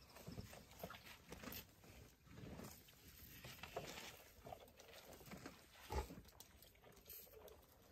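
Faint, scattered sounds of elephants feeding and moving at close range as a calf drinks from a hand-held bottle, with one sharp thump about six seconds in.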